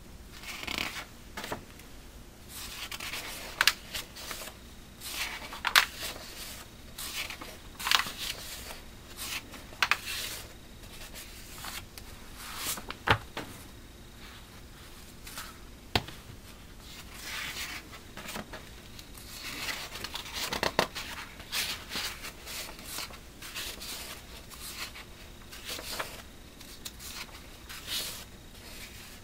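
Magazine pages being turned and handled: irregular paper rustles and swishes, with a few sharp clicks.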